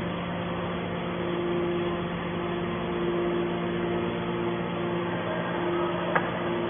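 Hydraulic scrap baler's power unit running with a steady hum, a sharp click about six seconds in.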